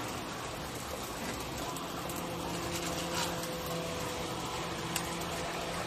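Pan-fried buns (shuijianbao) sizzling in hot oil in a wide flat pan, a steady crackling hiss, with a couple of sharp clicks about three and five seconds in.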